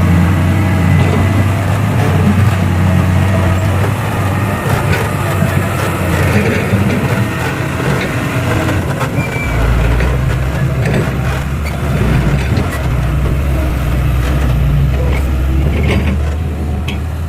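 Heavy diesel machinery engine running steadily. Its deep note drops lower about halfway through, and a few sharp knocks come near the end.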